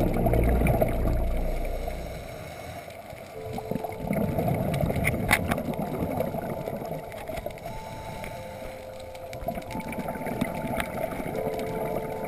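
Underwater sound through a dive camera's housing: a muffled wash of water with bubbling and clicks from scuba breathing, over a faint steady drone of a distant boat engine from about three seconds in.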